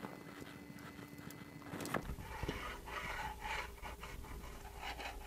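A few light clicks, then from about two seconds in the linear ball bearings of a Monoprice Maker Select Plus bed carriage rolling along its steel guide rods as the carriage is pushed back and forth by hand: a faint, uneven rubbing. The bearings are running smooth.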